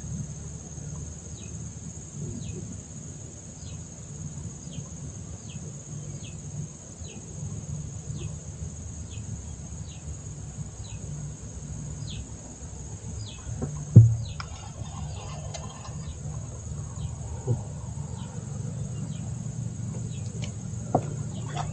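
Riverside ambience: a steady high insect drone with a bird's short falling call repeated about once a second, over a low rumble. A sharp knock about two-thirds of the way through is the loudest sound, with two lighter knocks later.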